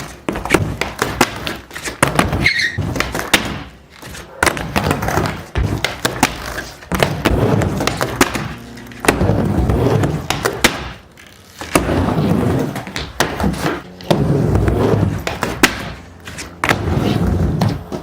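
Skateboard riding back and forth on a mini ramp: the wheels rumble in repeated runs of a second or two, with sharp clacks and slaps of the board and trucks between and during them.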